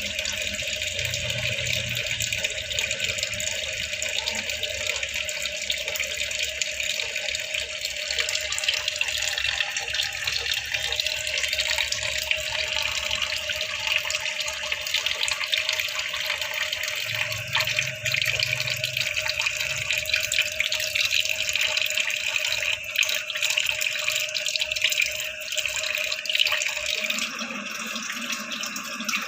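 Tap water running in a steady stream into a sink, with an even splashing hiss. A faint steady tone underneath stops near the end.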